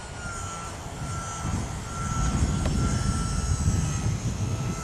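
Parkzone Typhoon 2 3D RC airplane's electric motor and propeller whining steadily in flight, the pitch wavering slightly. Under it runs a low, uneven rumble that swells from about two seconds in.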